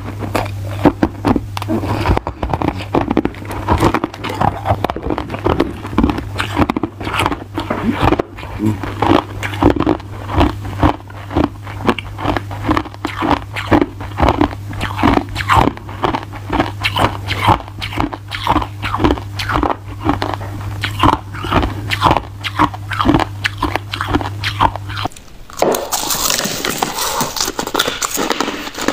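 Crushed ice being bitten and chewed close to a clip-on microphone: rapid, irregular crunches one after another. The crunching turns brighter and crisper about 25 seconds in.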